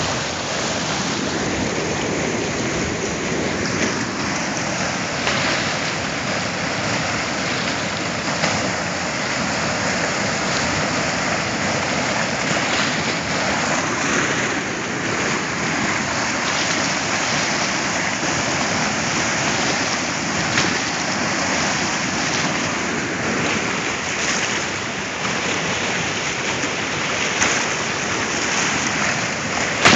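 A river swollen in flood, rushing and churning through a concrete weir and down its channel: a steady, loud rush of water.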